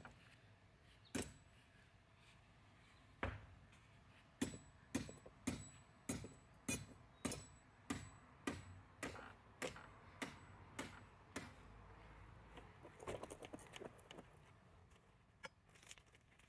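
A small sledgehammer striking a metal rod to drive it into rocky ground, sharp ringing metal-on-metal clanks. Two single blows come first, then a steady run of about two blows a second, fading to a few lighter knocks near the end.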